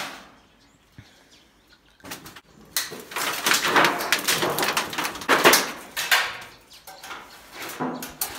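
Metal pieces being rummaged through and handled: a sharp clank at the start, then from about two seconds in several seconds of loud, irregular clattering and scraping of metal on metal.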